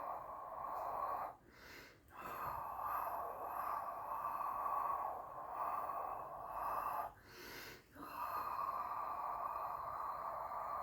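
A person breathing out in long, steady breaths of about five seconds each, with a short quiet break between them.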